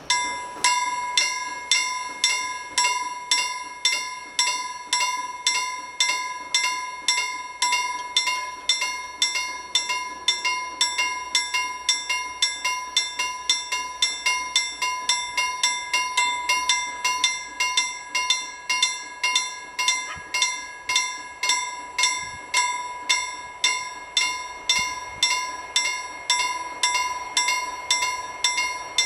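Level-crossing warning bell starts abruptly and rings with a steady series of strikes, about two a second, each ringing out before the next. It is warning that a train is approaching while the barrier arms lower.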